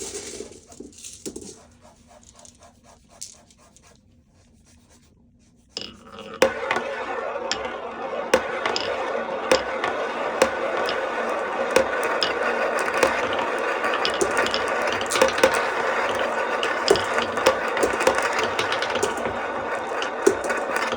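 Glass marbles rolling and clacking through a HABA wooden marble run. It starts faintly with a few light ticks, then about six seconds in it becomes a dense, continuous rolling rumble full of sharp clicks as many marbles run at once.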